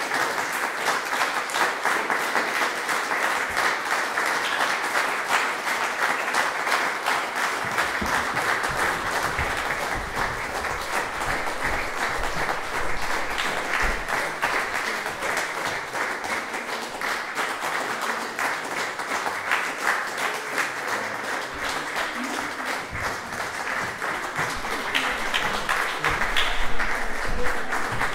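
Audience applauding steadily after a performance, the clapping swelling a little near the end.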